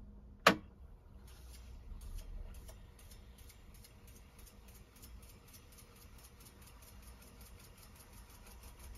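TEAC X-10R reel-to-reel tape deck: one sharp click of a transport button about half a second in, then the reels fast-winding the tape with a faint whir and a rapid, regular ticking.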